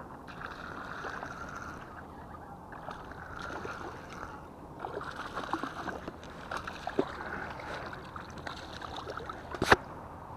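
A small largemouth bass being reeled in and landed on rod and reel: stretches of reel winding with splashy ticking at the water, and one sharp click near the end.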